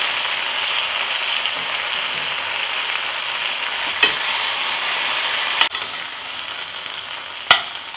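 Potato slices sizzling in a little oil in a pan, a steady frying hiss. Three sharp knocks against the pan, about four, five and a half and seven and a half seconds in, after which the sizzle is a little quieter.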